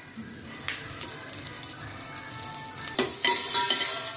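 Butter sizzling in a steel pot with whole spices, curry leaves and freshly added green chillies frying in it. It is stirred with a metal spoon, and the sizzle grows louder about three seconds in.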